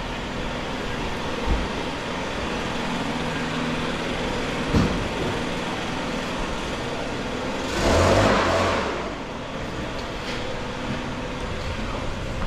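A motor vehicle's engine running steadily, with two short knocks and a louder rush of noise about eight seconds in.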